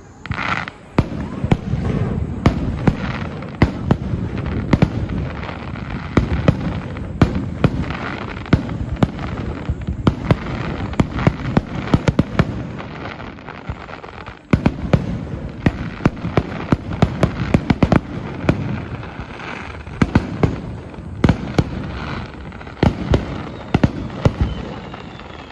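Aerial fireworks display: a dense, continuous volley of shells bursting, with many sharp bangs and crackling, easing off briefly about halfway before building again.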